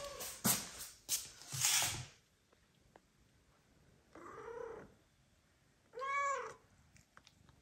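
Adult domestic cat meowing twice: a weaker meow about four seconds in, then a clear, stronger meow that rises and falls in pitch. Loud rustling, brushing noises come before them in the first two seconds.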